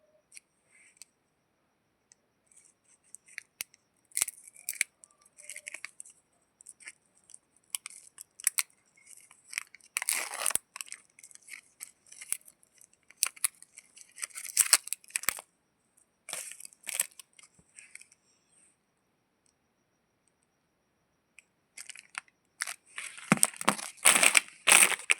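Chocolate bar wrappers being torn open and crinkled by hand in short, irregular bursts of crackling. There is a pause of a few seconds, then a louder flurry of tearing near the end.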